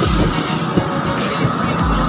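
Background music with a beat, with bursts of low wind rumble on the microphone.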